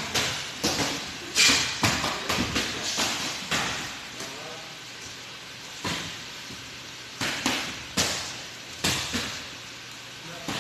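Boxing gloves landing punches in a sparring exchange: a dozen or so sharp slaps at irregular intervals, the loudest about a second and a half in.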